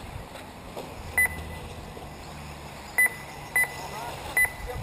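Short, high electronic beeps from an RC race lap-timing system, sounding four times at uneven intervals as buggies cross the timing line.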